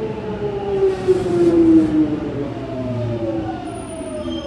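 Jubilee line 1996 Tube Stock train heard from inside the carriage: the traction motors whine in several tones that fall steadily in pitch as the train slows, over the rumble of the wheels on the track.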